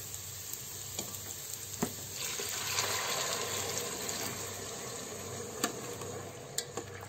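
Water poured from a plastic bowl into a multicooker pot of hot frying rice, a rushing pour from about two seconds in to about five and a half seconds in, over the rice's steady sizzle. A few sharp clicks come from the plastic spatula against the pot.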